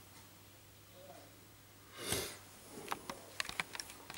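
Quiet room tone, then a short sniff about two seconds in, followed by a handful of light clicks and taps.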